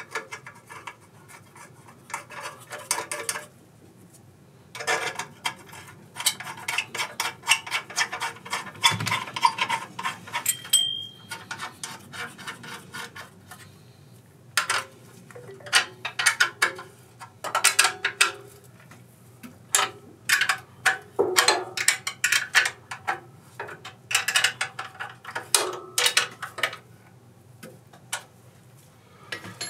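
Tools and small metal parts clinking and clattering as they are handled, in irregular bursts of sharp taps and clicks with short quiet gaps between.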